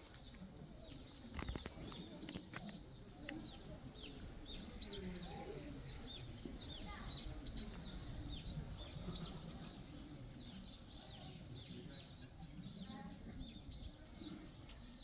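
Small birds chirping over and over in short, quick chirps, with a few sharp clicks about two seconds in.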